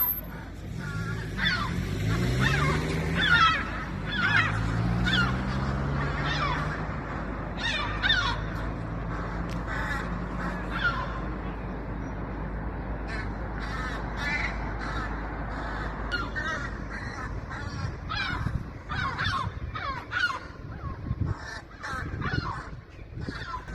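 A group of gulls calling over and over, many short harsh calls overlapping one another, with a low hum underneath through the first half.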